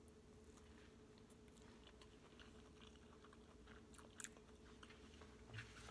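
Very faint chewing of a forkful of quinoa and vegetables, with scattered soft clicks and one slightly louder click about four seconds in, over a faint steady hum.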